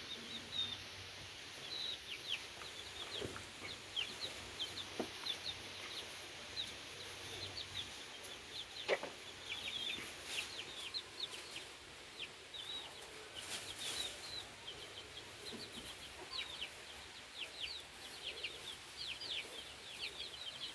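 Chickens calling in the coop: many short, high chirps keep coming throughout, faint, with a few soft rustles and knocks from nesting fibre being handled.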